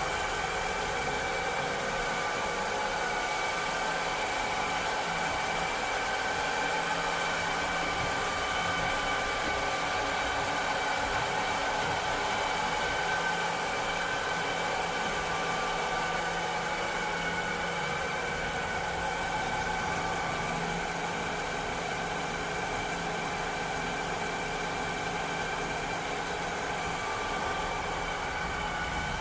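Cleaning robot running steadily: an even motor whir and hiss with several steady humming tones, slightly quieter from about two-thirds in.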